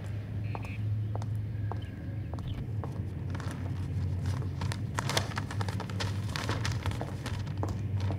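High-heeled footsteps clicking at a walking pace over a steady low city traffic hum, with a stretch of newspaper pages rustling in the middle.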